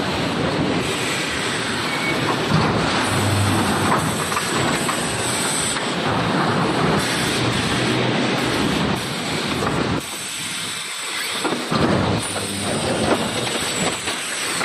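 Industrial machinery running: a dense, continuous clatter and hiss, briefly quieter about ten seconds in.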